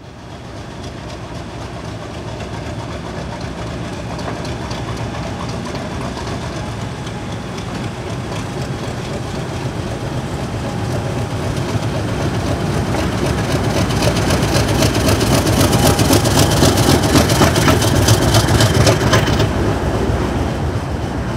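Diesel locomotive running with a train, its engine growing louder to a peak a few seconds before the end and then easing off. A rapid run of clicks from the wheels comes at the loudest part.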